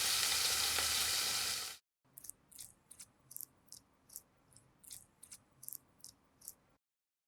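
Food sizzling in a hot frying pan, cutting off suddenly about two seconds in. Then a run of faint, light ticks, about three a second.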